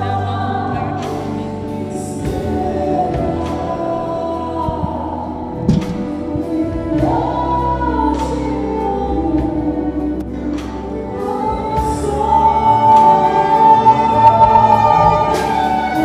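A choir singing a hymn in long held notes, growing louder in the last few seconds.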